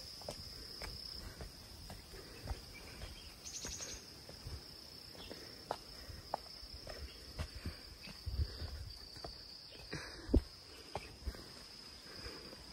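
Insects in the trailside vegetation keep up a steady high-pitched drone, with a brief rapid trill about three and a half seconds in. Soft footsteps on the dirt-and-stone path are heard throughout.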